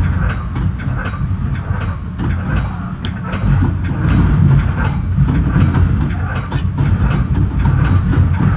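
Metra commuter train's wheels rumbling steadily on the rails, with scattered clicks as they pass over switches and crossovers.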